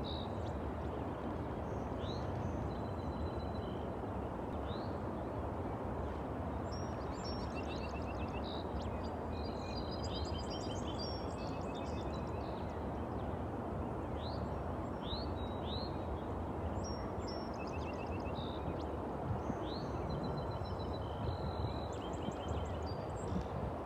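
Dawn chorus of several songbirds: many short rising chirps, whistles and buzzy trills, over a steady low background rumble.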